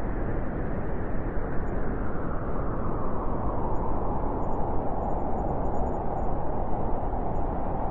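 Cold wind blowing steadily, a deep rushing with a hollow tone that grows stronger toward the end.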